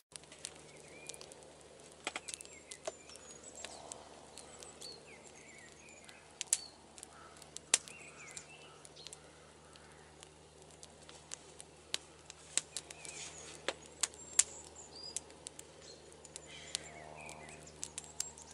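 Small birds chirping in the open, with irregular sharp pops and crackles from a wood campfire.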